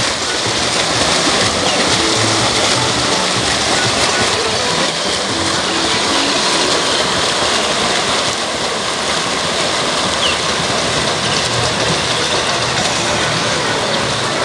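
Swimmers' freestyle splashing mixed with the din of a poolside crowd: a steady, loud wash of noise.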